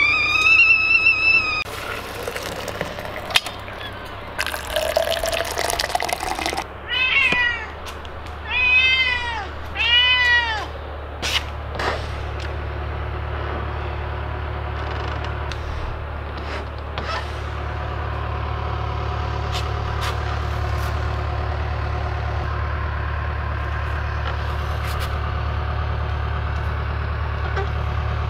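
A domestic cat meowing three times in quick succession, each call rising and falling, about seven to eleven seconds in, asking to be let out. A wavering high whistle sounds at the very start, and a steady low hum runs under the second half.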